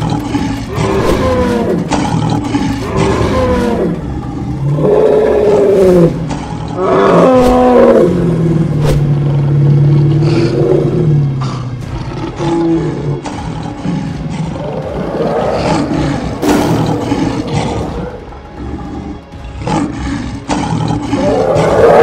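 Cartoon fight sound effects: an animated lion roaring again and again, with many sharp hits in between, over background music.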